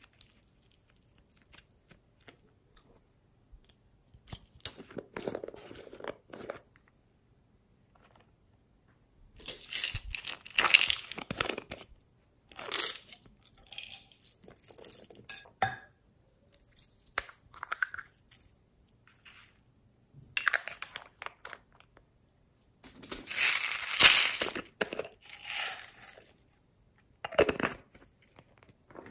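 Slime being squished and kneaded by hand, crackling and crunching in irregular bursts of one to three seconds with quiet gaps between; the longest and loudest squish comes about four-fifths of the way through.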